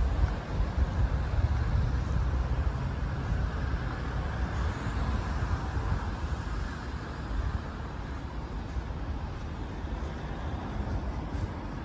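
Street ambience of steady road-traffic hum, with a low rumble that is louder in the first few seconds and then settles.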